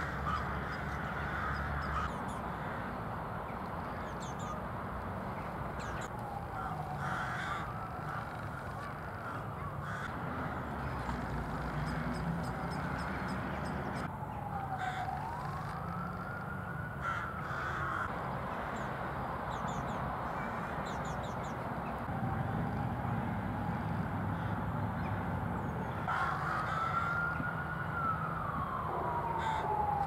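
Crows cawing in short calls, with a distant siren wailing in long, slow sweeps that rise and fall in pitch several times, over a steady low rumble.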